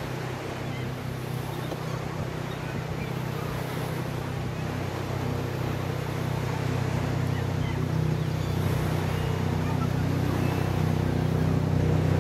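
An engine's low steady hum, growing gradually louder, over the wash of surf and wind.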